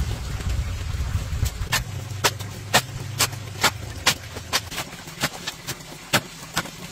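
A hoe chopping and scraping into a dry pile of cement and sand, sharp crunching strikes about two a second. A low rumble fades out about two seconds in.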